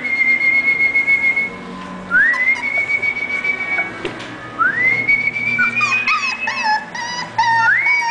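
A person whistling: four long, high whistled notes, each swooping up and then held steady for about a second or more.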